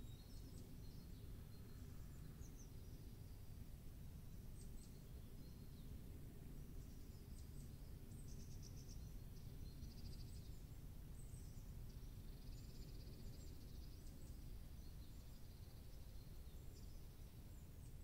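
Faint woodland songbirds calling: scattered short high chirps, with a quick trill of rapid high notes about halfway through, over a steady low rumble.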